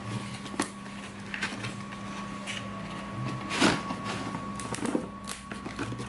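A cordless drill's box being opened and handled: scattered clicks, knocks and rustles, with one louder scraping rustle about three and a half seconds in. A steady electrical hum runs underneath.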